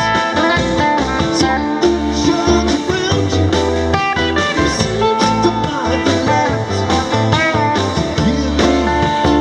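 Live rock band playing: electric guitars over drums, bass and keyboard, with bending lead-guitar notes.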